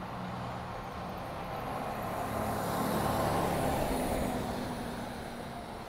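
Box ambulance driving past on the street, its engine and tyre noise swelling to a peak about three seconds in, then fading as it moves away.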